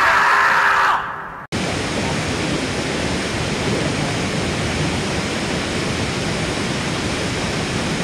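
A loud, shrill, pitched sound for about the first second, cut off abruptly; then a steady rushing roar of falling water heard from the jungle floor.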